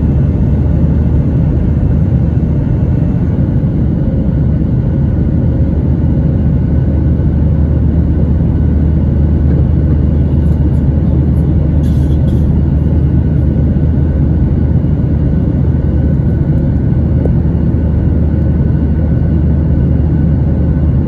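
Steady, loud rumble of engine and airflow noise inside the cabin of a Southwest Airlines Boeing 737 in flight, with a faint steady whine above it.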